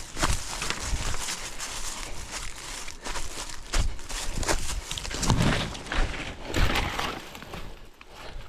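Irregular footsteps of a runner moving over forest ground, recorded close up by a head-mounted camera.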